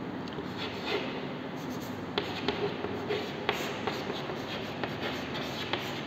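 Chalk writing on a chalkboard: scratching strokes with several short, sharp taps as the chalk meets the board.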